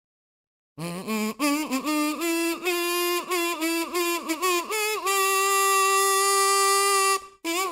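Solo kazoo playing a song melody with a bright buzzy tone. It comes in about a second in with a run of short notes, holds one long note for about two seconds, breaks off briefly and starts again near the end.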